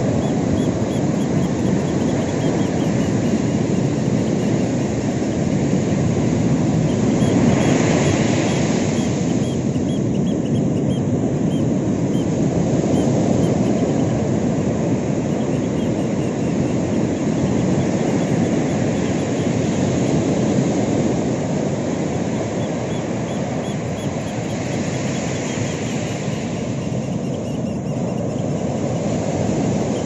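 Ocean surf breaking on a sandy beach: a steady wash of waves that swells louder and brighter as bigger waves break about eight seconds in and again about twenty-five seconds in.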